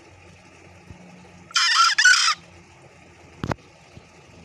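Green junglefowl cock crowing once, a hoarse two-part call about a second and a half in. A single sharp knock follows about a second later.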